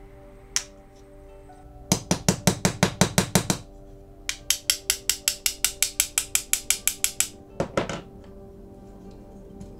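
Quick scraping strokes of a thin metal tool against a crud-encrusted, corroded diecast toy car body, about six strokes a second. They come in two runs with a short pause between, and a last couple of strokes about eight seconds in, over background music.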